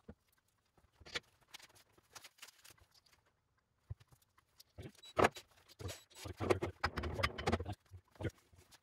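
Scattered clicks, taps and rustles of engine parts and tools being handled at a workbench and engine block, with a busier stretch of clatter about five to seven and a half seconds in.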